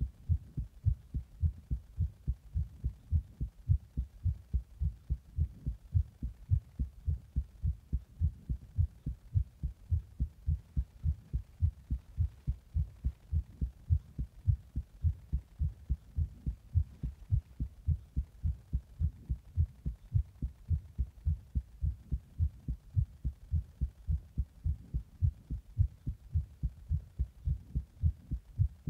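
A human heart beating steadily, heard up close as a regular run of dull low lub-dub beats. It is recorded just after a Monster energy drink taken in the bath and pressure on the chest.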